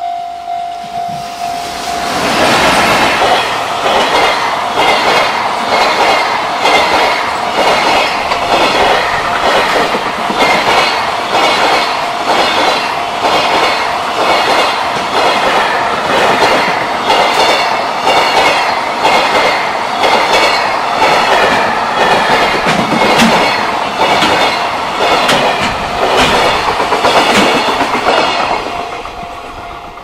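A level crossing warning bell rings at a steady beat of about two strokes a second. About two seconds in, an EF210 electric locomotive hauling a JR Freight container train passes close by and drowns it out. The container wagons' wheels then clatter over the rail joints in a rapid, even rhythm, and the crossing bell is heard again as the train clears near the end.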